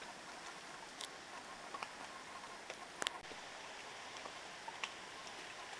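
Steady rush of the Cupatitzio River's white-water rapids, with a few scattered sharp clicks, the loudest about three seconds in.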